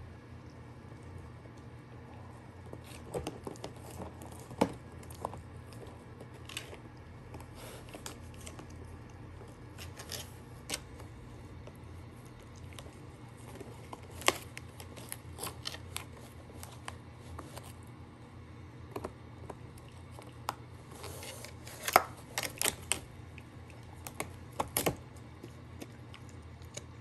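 A dog chewing a large rawhide bone, its teeth making irregular crackling and crunching clicks as it works the frayed, softened end. The crunches come in scattered bursts, busiest about three quarters of the way through.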